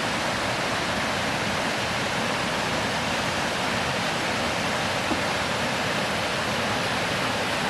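Small woodland waterfall on a brook: a steady, even rush of falling water.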